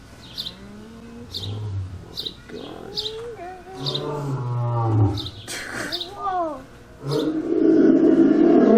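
A lion roaring: a run of low moaning calls that swell and fall, loudest near the end. A bird gives a short chirp over and over, about once every 0.7 seconds.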